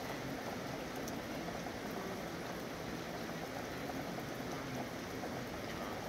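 Steady city rain falling, an even hiss with no breaks.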